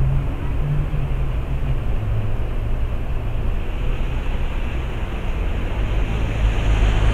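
Car engine running steadily, with a continuous wash of water as the tyres push through shallow floodwater, heard from inside the cabin; it grows a little louder near the end.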